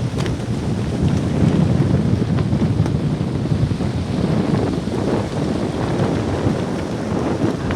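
Strong wind with rain, the gusts buffeting the microphone into a loud, low, uneven rumble.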